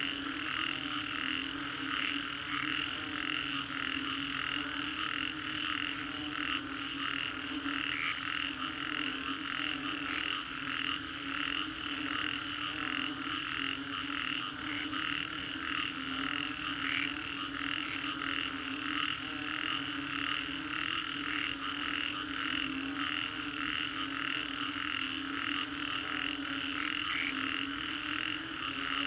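Chorus of many frogs calling together after a rainstorm. A dense mass of rapid pulsing high calls sits over a steady lower calling note, without a break.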